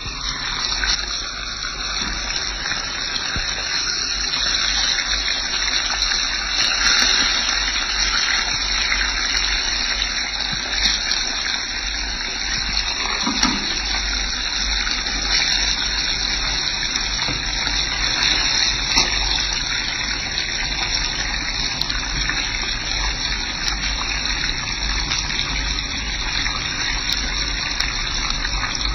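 Hilsa fish pieces frying in hot oil in a pan: a steady sizzle with small scattered crackles.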